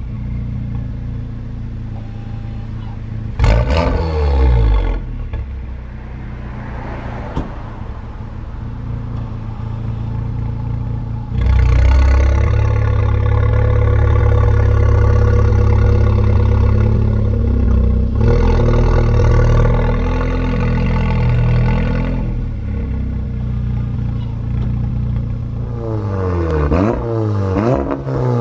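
Volkswagen Golf 7 R's turbocharged 2.0-litre four-cylinder through a non-resonated Milltek exhaust with a custom bypass: idling, a short rev, then long stretches held at higher revs. Several quick rev blips follow near the end.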